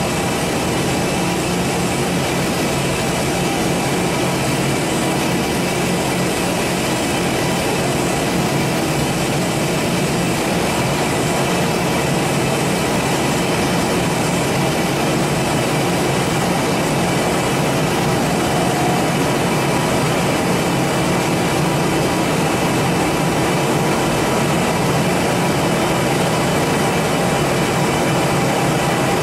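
Giddings & Lewis 84 CNC vertical turning lathe running, a steady machine hum with a few faint steady tones over it, unchanging throughout.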